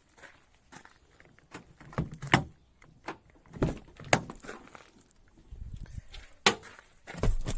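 Several separate knocks and clunks at uneven intervals, the loudest about two and a half seconds in, with two more about four seconds in and a cluster near the end.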